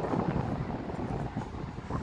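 Wind buffeting the microphone, a gusty low rumble that rises and falls unevenly.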